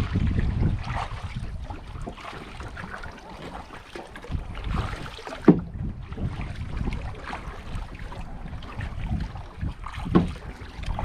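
Kayak paddling: paddle strokes swishing and splashing in the water, with wind rumbling on the microphone. There are two sharp knocks, one about halfway through and one near the end.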